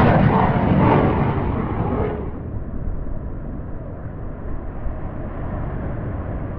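Jet airliner engines and cabin rumble during takeoff, heard from inside the cabin. About two seconds in, the sound turns muffled, losing its higher hiss, and carries on as a steady low rumble.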